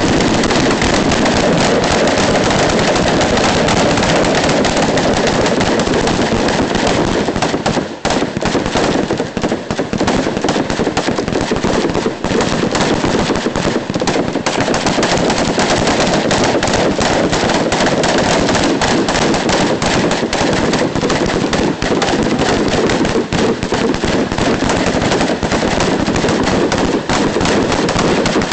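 Many M16 rifles firing semi-automatic at once along a firing line, the shots overlapping into continuous dense gunfire with no pause.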